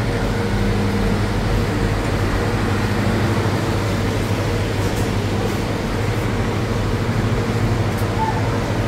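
Steady low machine hum of supermarket refrigeration and ventilation, with a few steady low tones under an even wash of noise.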